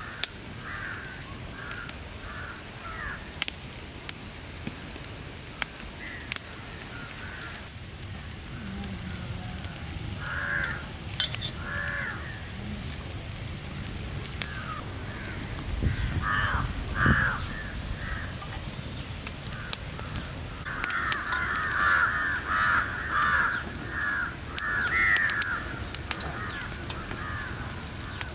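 Crows cawing again and again, with a dense run of caws about three quarters of the way through, over the sporadic crackle of an open wood fire. A brief low rumble comes midway.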